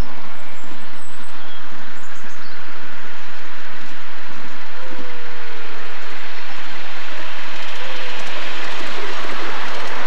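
Miniature-railway steam locomotive hauling ride-on passenger cars past on a raised track: a rushing noise of steam and running gear that grows louder from about halfway in as the train draws close.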